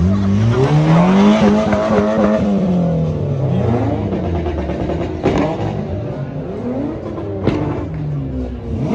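Car engine revving hard, its pitch climbing for about a second and a half and then falling away, over other car engines running. Two sharp cracks come later, about two seconds apart.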